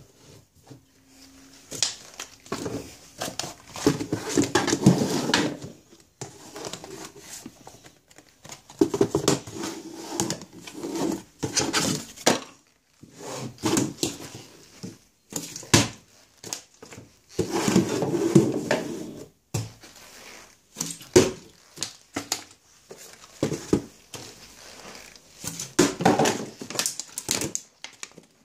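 A plastic bottle handled and knocked down on a stone kitchen countertop again and again: crinkling and rustling bursts of a second or two, with sharp knocks in between.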